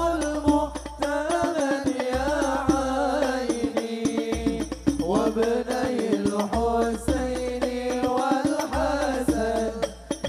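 Live hadroh sholawat: a male voice sings a devotional Arabic melody with ornamented turns over hadroh frame drums, with deep drum strokes marking the beat.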